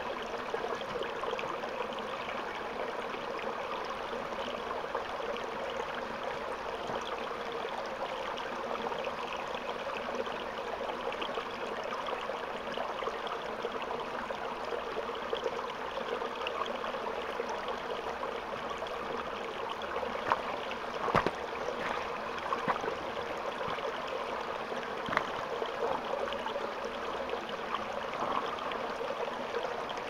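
Small rocky waterfall on a mountain stream, water running steadily over the rocks, with a few brief sharp sounds about twenty seconds in.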